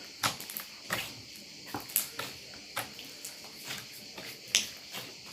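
Slime being squeezed and worked in the hands, giving irregular sharp clicks and pops, the loudest about four and a half seconds in.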